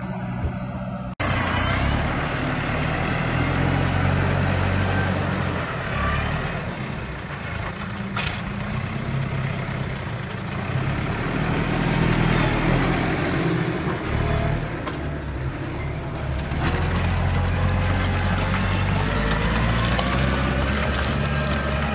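Tractor diesel engines working under load while ploughing: a John Deere pulling a cultivator for the first second, then, after an abrupt cut, a Case IH tractor pulling a mouldboard plough, a steady low engine drone under a broad hiss.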